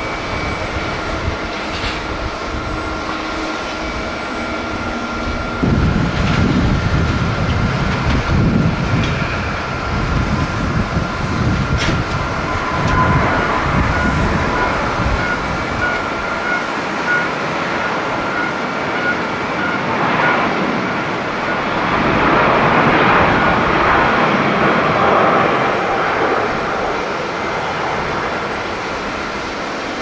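Twin-engine jet airliners at takeoff power: a continuous engine rumble with steady whine tones and a gusty low rumble, swelling about two-thirds of the way through as an Airbus A350 rolls and lifts off.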